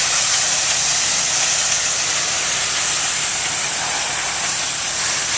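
Pressure washer spray hissing steadily as the high-pressure jet strikes concrete roof tiles.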